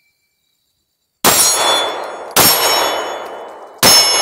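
Three handgun shots a second or so apart, each a sharp crack followed by the long ringing of a steel plate target being hit.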